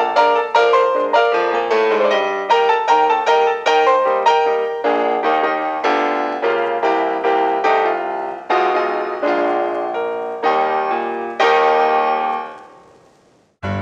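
Solo piano accompaniment playing a quick run of notes, ending on a held chord that fades away near the end.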